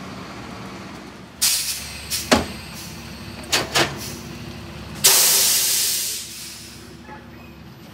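Garbage truck engine idling, then several loud bangs as wheeled trash carts are tipped into and knocked against a Heil rear loader's hopper. A loud hiss of released air follows and fades over about a second and a half.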